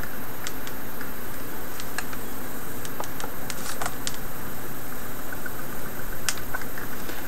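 Scattered light clicks and taps of a replacement laptop LCD panel and its plastic frame and metal hinges being handled and seated, over a steady background noise.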